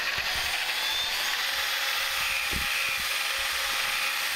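Cordless drill spinning a wire whisk through thick brownie batter in a stainless steel bowl: a steady whir, with a few low knocks about two and a half seconds in.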